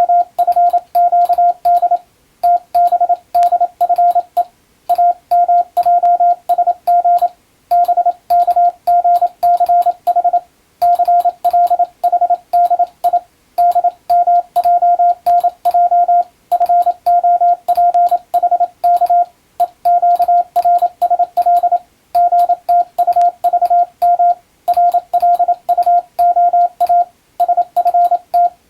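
Morse code (international CW) sent with an electronic keyer as a steady mid-pitched beep, quick dots and dashes keyed in letter groups with short pauses between groups every two to three seconds. A faint click comes with each element.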